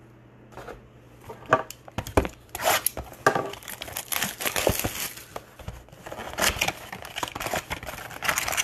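Plastic wrapping crinkling and tearing in quick irregular bursts, starting about half a second in, as a trading-card blaster box is unwrapped and its foil card packs are handled.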